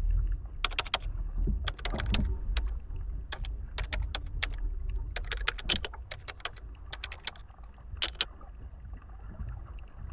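Underwater sound picked up by a camera in a housing: a low rumble of moving water with irregular sharp clicks and crackles, some in quick clusters. The rumble eases off after about six seconds.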